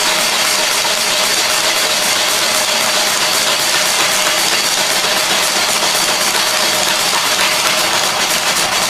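Van Norman 777 boring bar running steadily as its cutter spins inside an engine cylinder, taking a thin cut to bore it 40 over. A loud, even machine hum with a steady high whine.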